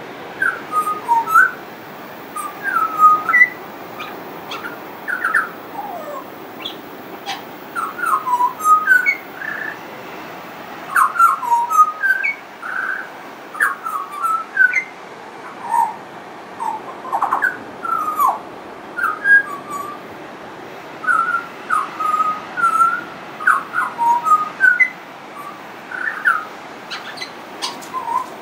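Pied butcherbird singing: a long run of short, clear whistled notes that slide up and down, delivered in phrases of a few notes with brief pauses between them.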